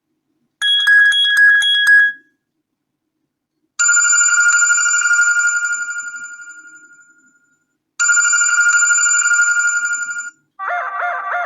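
Preset ringtones of a BQ-5702 Spring smartphone played one after another. First comes a quick run of high electronic beeps. Then a single held tone rings and slowly fades, starts again and is cut short, and a new multi-note melodic ringtone begins near the end.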